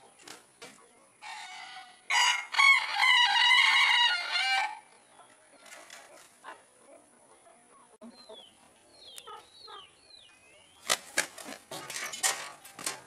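A rooster crows once, about two seconds in: one long call of about two and a half seconds. Near the end comes a quick run of wingbeats as the Phoenix rooster flies up.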